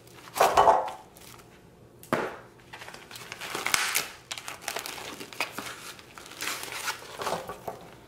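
Plastic wrap and foam meat trays crinkling and crackling as packs of oxtails are unwrapped and emptied into a glass bowl. There is a thump about half a second in and a sharp click a couple of seconds in.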